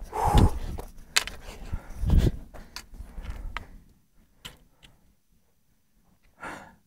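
Footsteps on a rocky mountain trail, uneven thumps and clicks of boots on stone, stopping about four seconds in. Near the end there is one short breath.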